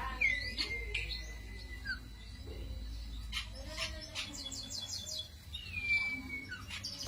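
Cito songbird singing: long drawn-out whistled notes, each rising sharply then held and sliding slightly down, with a quick high twittering trill between them. This is the song kept as a pancingan or master recording for prompting and tutoring other songbirds.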